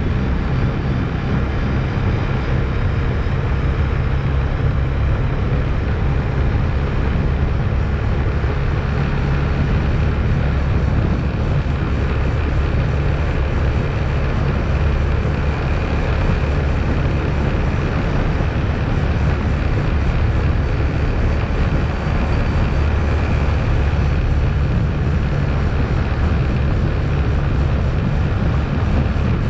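ATV engine running steadily while riding, a constant low drone that barely changes in pitch or level.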